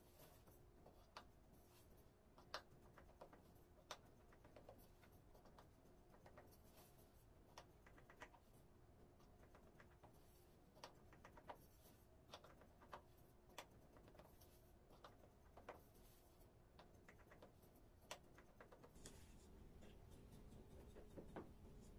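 Faint, irregular ticks and clicks of a kitchen knife cutting raw layered baklava pastry into wedges in a metal tray, the blade tapping the tray as it goes.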